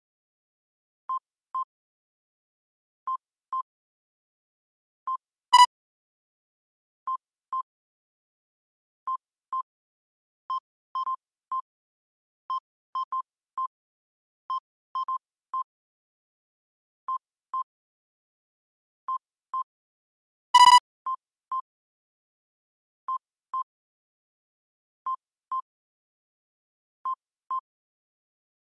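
Electronic alert beeps from earthquake-monitoring software during an earthquake early warning: short, high beeps in pairs half a second apart, repeating about every two seconds, with two louder, sharper beeps, one about six seconds in and one near twenty-one seconds.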